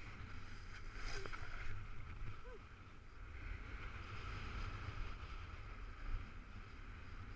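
Skis hissing and scraping over groomed snow during a downhill run, with wind rumbling on the camera's microphone. A brief knock comes about a second in.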